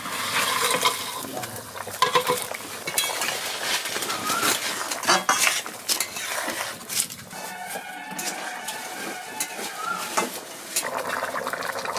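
A long metal ladle stirring fish curry in a two-handled metal kadai, with frequent sharp clinks and knocks against the pan, over the curry sizzling on the fire.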